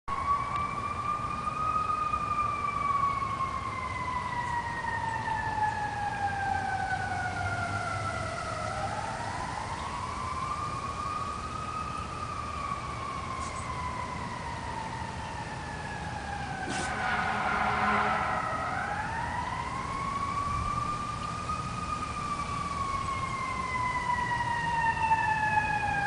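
A siren wailing, its pitch rising over a couple of seconds and then sinking slowly over several seconds, three times over, before it falls away sharply at the end. A short, louder noise cuts in briefly about two-thirds of the way through.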